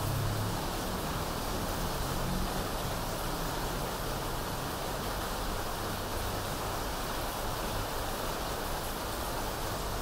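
Electric fan running with rain falling, together making a steady, even hiss. A low hum is strong at the start and fades out over the first few seconds.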